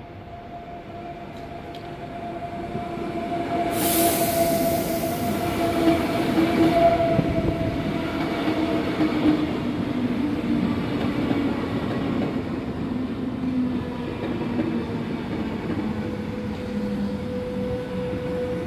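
Electric passenger train pulling into the platform and braking. Its running noise swells over the first few seconds, with a burst of hiss about four seconds in. A whine falls slowly in pitch as it slows, and a steady high squeal comes in near the end.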